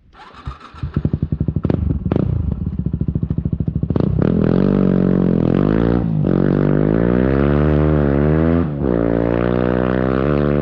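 Yamaha WR250R's single-cylinder four-stroke engine with an FMF Power Core 4 exhaust, spark arrestor removed, starting up. Separate firing pulses come quicker and quicker over the first few seconds, then it settles into a steady idle that wavers slightly in pitch.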